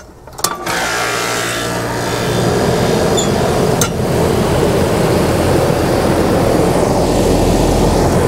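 Central AC condensing unit switching on with a click, then its condenser fan motor spinning up over a couple of seconds and running steadily with a low electrical hum and rushing air. The fan is turning the wrong way, pulling air down into the unit instead of blowing it up and out.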